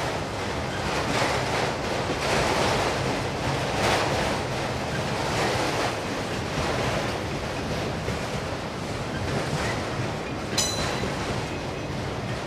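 Autorack freight cars of a long train rolling past: a steady rushing rumble of steel wheels on the rails, with a brief high metallic ring about ten and a half seconds in.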